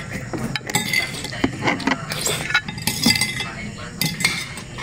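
Metal spoon and fork clinking and scraping against a ceramic plate in a run of short sharp clicks, with the mouth sounds of eating noodles between.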